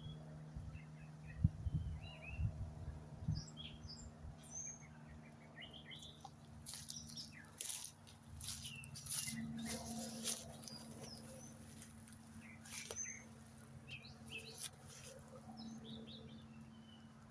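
Several wild birds chirping and calling in short, scattered notes, with a few brief noisy bursts around the middle and a steady low hum underneath.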